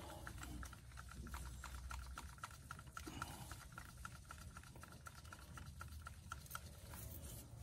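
A hand ratchet with a 5 mm Allen socket clicking in a quick, faint run as it snugs down the small bolts of a 7.3L Power Stroke injector-cup installer tool.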